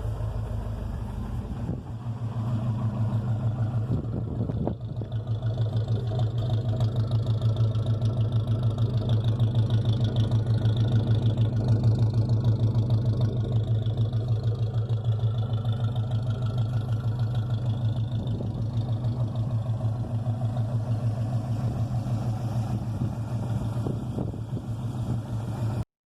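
1976 Chevrolet Opala engine idling with a steady, even low pulse.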